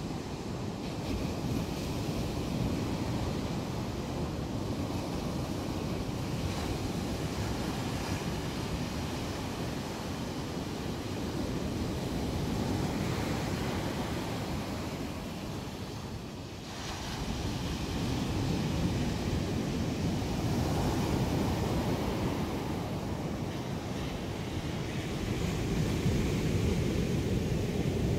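Black Sea storm surf breaking and washing up a sandy beach: a continuous rush of waves that swells and eases, dipping briefly about halfway through before building again.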